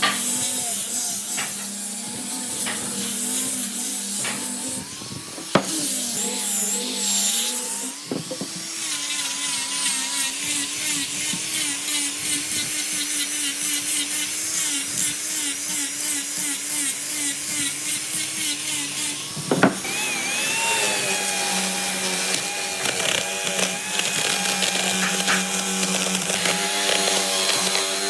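Electric woodworking power tools running on hardwood, a steady motor tone with a hiss of cutting. The tone shifts abruptly to a different pitch about 8 seconds in and again about two-thirds of the way through, with a sharp click at each change.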